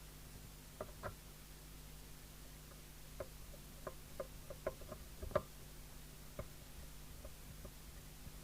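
Irregular light clicks and taps of small metal hardware being handled as a mounting bracket is screwed onto a CB radio, the sharpest about five seconds in, over a faint steady low hum.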